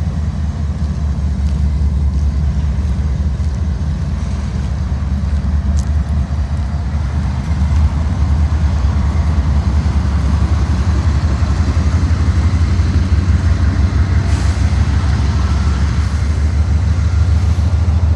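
Ford F-150 pickup running, a steady low engine and road rumble that gets louder about eight seconds in.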